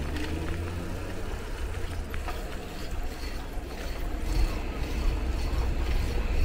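Low rumble of wind on the microphone and road noise while riding a bicycle, with a vehicle engine humming nearby at first. The rumble grows louder over the last couple of seconds.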